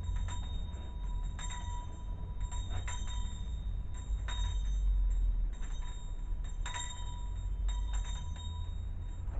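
Soft bell-like chimes struck irregularly, about eight strokes, each ringing on in several clear high tones, over a steady low hum.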